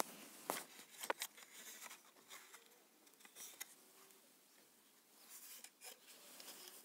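Faint handling noise: two sharp clicks about half a second and a second in, then light scattered clicks and rustling as the plastic alarm clock and phone are moved about.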